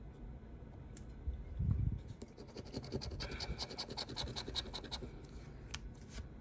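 A scratch-off lottery ticket being scratched: a fast run of short scraping strokes, about nine a second, from about two seconds in to about five, with a few single strokes after. A low bump comes just before the run.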